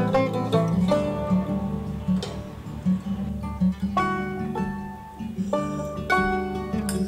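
Background music of a plucked acoustic guitar, single notes picked over a steady bass.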